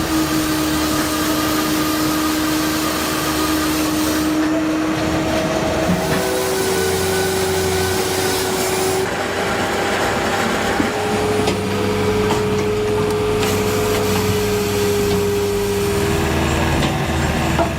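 Spaltfix K650 Vario firewood processor running, with steady sawing and machine noise. A steady whine steps up in pitch a few times, about six, nine and eleven seconds in.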